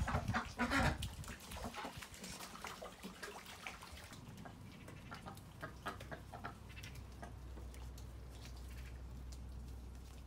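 Muscovy duck's wings flapping for about the first second, then ducks shuffling about with scattered soft clicks and a few quiet calls.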